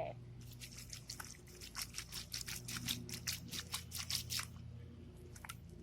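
Sticky clear slime pulling and squelching on concrete, a quick irregular run of small crackling clicks that dies away about four and a half seconds in.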